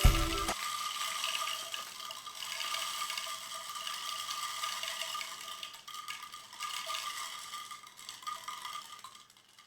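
Music cuts off about half a second in, then a 3D-printed rain tree sounds alone: a steady pattering rattle of its small falling pieces, with faint ringing tones, that slowly thins out and dies away near the end.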